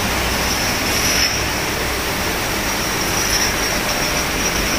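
Bottling-plant machinery running: a steady, even mechanical noise with a constant high-pitched whine over it.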